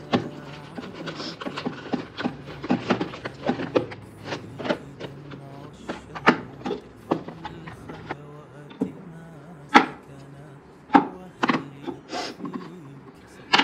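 Irregular knocks, taps and clatter of objects being handled, over a steady low hum.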